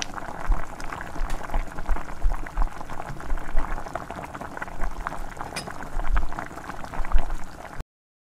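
Shakkar pare dough pieces deep-frying in hot oil in a kadhai: a steady bubbling sizzle with many small crackles. It cuts off abruptly near the end.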